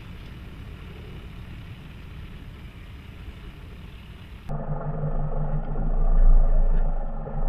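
Nissan Navara's 190 PS diesel engine running as the pickup crawls slowly over grass, heard from behind at a moderate level. About four and a half seconds in, the sound cuts abruptly to a much louder, deeper drone with a steady low hum, heard close up from under the chassis, swelling a second or so later.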